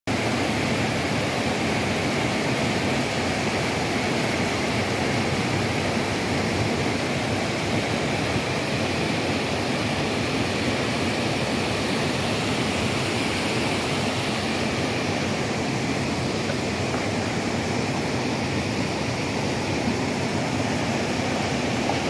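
Small waterfall cascading over rocks into a mountain stream: a steady, even rush of falling water.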